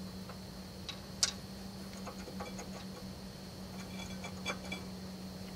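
Inner disc brake pad on a 1991 Mercedes 420 SEL being slid out of its caliper by hand, with a few light metallic clicks and clinks. The sharpest click comes about a second in. A steady low hum runs underneath.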